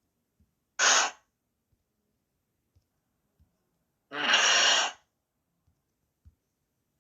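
Two hissing, breath-like sound effects played back by an ETI 3170 device: a short one about a second in and a longer one just after four seconds, with faint clicks in between.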